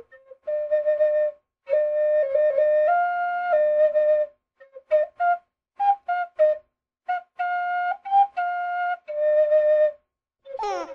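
Flute-like whistled notes: some long and held, some short, changing pitch in steps with brief gaps between. A quick up-and-down sweep in pitch comes near the end.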